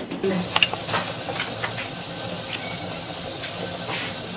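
Water boiling hard in the steel bottom pan of a steamer: a steady hiss and bubbling with scattered light pops.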